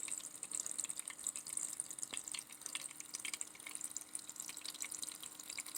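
Small battery-powered tabletop water fountain running: water trickling and dripping steadily, with a faint steady pump hum underneath.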